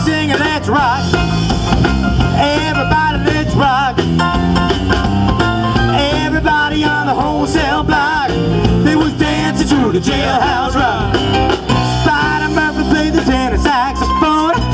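Rock and roll music: a band playing with a voice singing over guitar and a steady beat.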